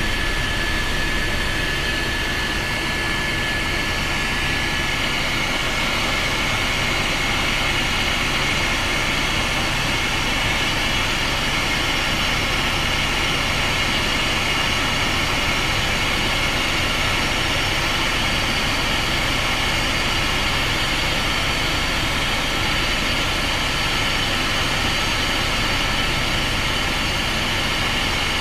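Steady engine drone and rushing air heard inside an airplane cabin in flight, with a faint high whine.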